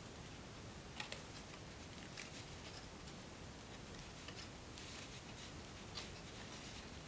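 Paper being folded and creased by hand: a strip of stiff elephant-hide paper gives a few faint crackles and ticks over a low steady hiss.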